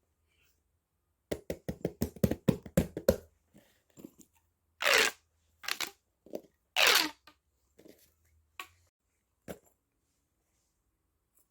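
A quick run of about ten taps or knocks, then two short, louder rustling, tearing-like sounds.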